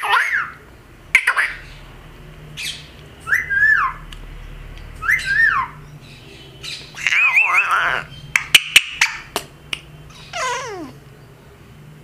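Indian ringneck parrot (rose-ringed parakeet) giving short calls every second or two, each rising and then falling in pitch. There is a longer wavering call about seven seconds in and a long falling call near the end, with a few sharp clicks in between.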